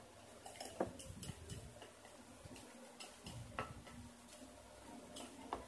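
Scattered light clicks and taps of containers and a stirring utensil being handled during slime mixing, with sharper clicks about a second in, about three and a half seconds in and near the end.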